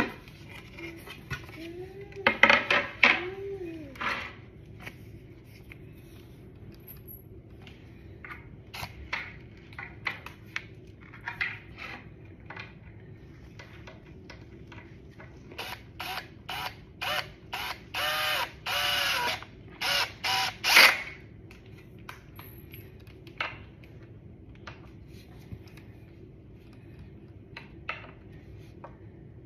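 Cordless drill driving screws into the chair's particleboard parts in a run of short bursts about two-thirds of the way through, with scattered clicks and knocks of the parts being handled.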